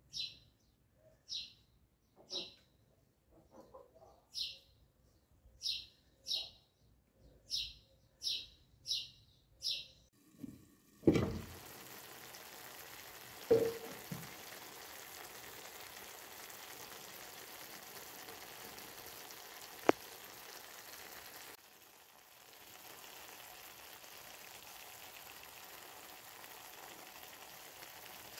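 A small bird chirps in short high calls, about one a second, for roughly ten seconds. Then, after a knock, a tagine of rice, vegetables and meat sizzles steadily as it cooks, with a couple of sharp clicks.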